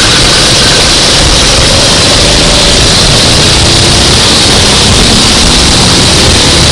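Go-kart engine running at racing speed, loud and steady, its slowly shifting pitch half-buried in a dense noise that fills the recording.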